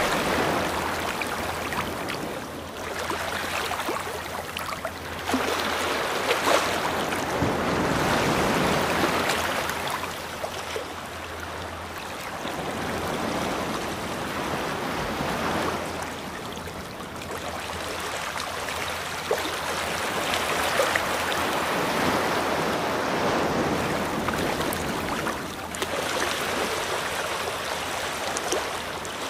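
Rushing water noise, like surf or a stream, swelling and fading every few seconds.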